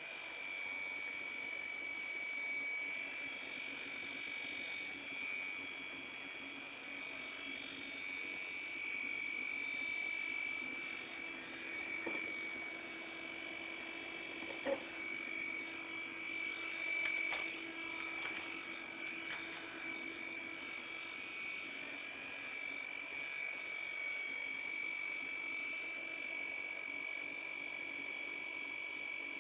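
Desktop computer fans running with a steady high-pitched whine over a lower hum, the whine typical of a failing fan. A couple of faint knocks come about 12 and 15 seconds in.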